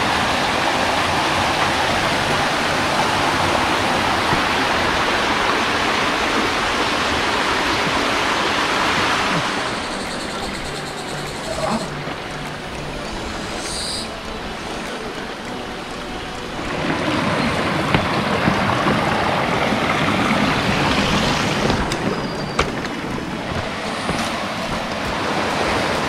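Rocky mountain stream rushing over boulders, a steady rushing of water. It drops back about ten seconds in and swells up again at about seventeen seconds.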